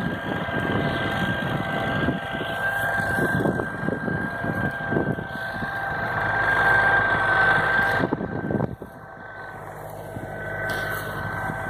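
Tractor engine running steadily under load as it pulls a double hitch of harrows, with a steady high whine over it and wind rumbling on the microphone. The sound drops off sharply about two-thirds through, then slowly builds again.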